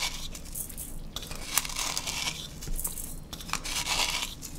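Kosher salt rubbed between the fingertips and sprinkled over raw ground pork in a stainless steel mixing bowl: a few short, soft rustles.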